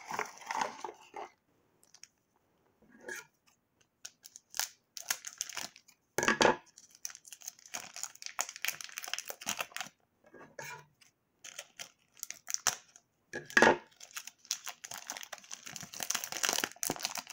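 Thin clear plastic wrap crinkling and tearing as it is peeled off a mini 3x3 speed cube by hand, in irregular crackly bursts with a few louder crackles.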